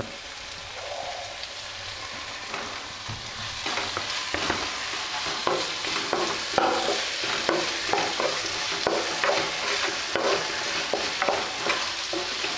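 Chopped tomatoes, onions and green chillies sizzling in hot oil in a non-stick kadai, stirred with a wooden spatula that scrapes against the pan in quick, frequent strokes. The sizzling and stirring grow louder a few seconds in.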